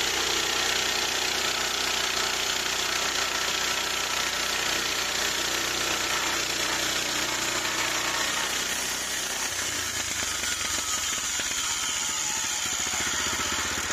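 Gas engine of a Harbor Freight band sawmill running steadily under a wide hiss, its note dropping and turning more pulsed about nine and a half seconds in.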